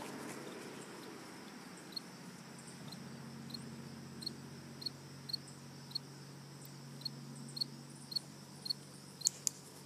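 Short, high chirps from a small animal, repeated irregularly about twice a second from about two seconds in, over a faint steady low hum.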